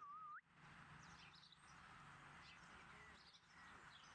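A rough collie puppy gives one short high whine at the very start, dipping then rising in pitch. After it come faint, scattered bird chirps over a quiet background.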